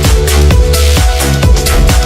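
Electronic dance background music with a fast steady beat and heavy bass.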